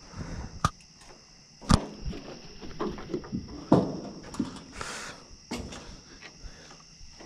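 Irregular knocks, thumps and rustling as a freshly caught bullhead is handled, with a few sharp loud knocks and a short rustle about five seconds in. A steady high chorus of night insects runs underneath.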